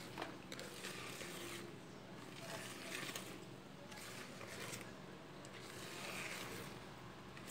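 A teal silicone balloon whisk stirring thick flour-and-egg sponge cake batter by hand in a bowl: faint, uneven swishing and scraping strokes.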